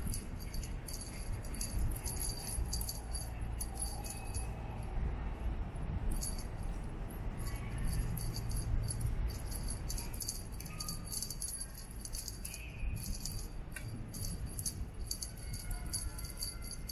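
Small bell in a cat teaser toy jingling in quick, irregular shakes as the wand is jerked about, pausing briefly about five seconds in.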